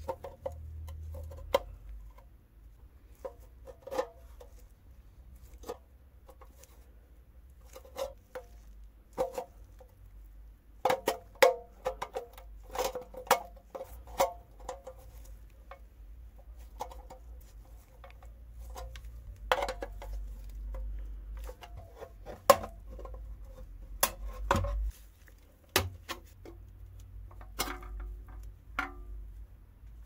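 Steel pliers clicking and scraping on the thin sheet-metal tabs of an antique coffee grinder's tin box as the tabs are pried up to free its lid. The result is irregular sharp metallic clicks and taps, many with a short tinny ring, bunched most densely a third of the way in.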